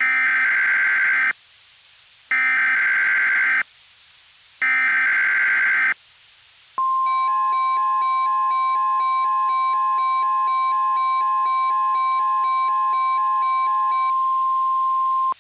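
NOAA Weather Radio emergency alert: three short bursts of screeching SAME digital header data, then the steady 1050 Hz weather radio warning alarm tone held for about eight seconds, signalling that an alert is about to be broadcast. For most of the tone's length, a rapid pattern of beeps, about four a second, sounds over it.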